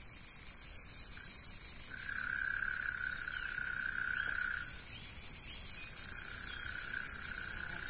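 A chorus of insects chirring steadily in a high-pitched, continuous buzz. A lower steady note joins about two seconds in, breaks off near the middle and returns toward the end.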